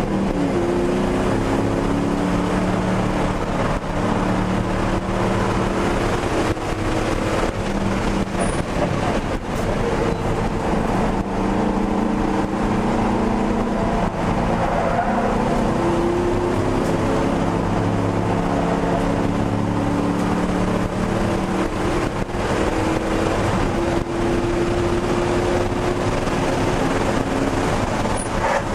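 1999 Ford Mustang GT's 4.6-litre V8 heard from inside the cabin at track speed, its pitch climbing and dropping again and again as the throttle goes on and off through the corners, over steady road and wind noise.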